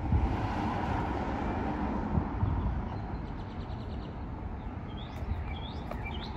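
Small birds chirping, with a fast trill about halfway through and a few short rising chirps near the end, over a steady low rumble.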